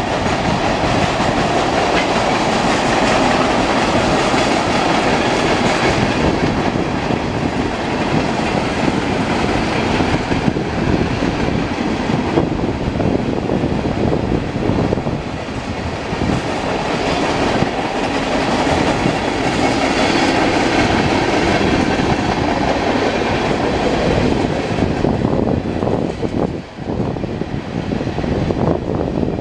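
Freight cars of a long mixed freight train, mostly tank cars, rolling past at speed: a steady rumble of steel wheels on rail with the clickety-clack of wheels over rail joints.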